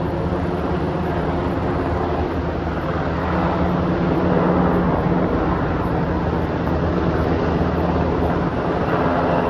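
Firefighting helicopter in flight, a steady drone of rotor and engine with a low hum that grows slightly louder a few seconds in.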